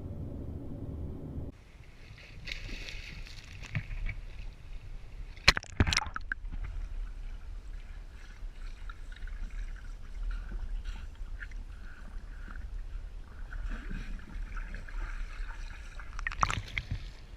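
Water sloshing and splashing, with a few sharp knocks, the loudest about five and a half and six seconds in. A low steady rumble cuts off about a second and a half in.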